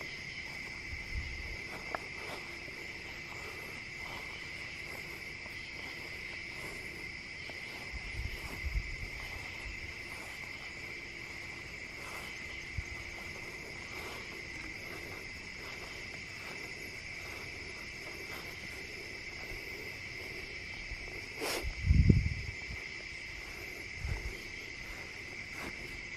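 Steady chorus of crickets trilling without a break. A few low thumps stand out, the loudest about 22 seconds in.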